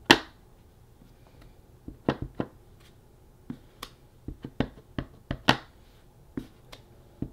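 Clear acrylic stamp block knocking and tapping as it is inked on an ink pad and pressed onto cardstock: a run of irregular short taps, the loudest right at the start.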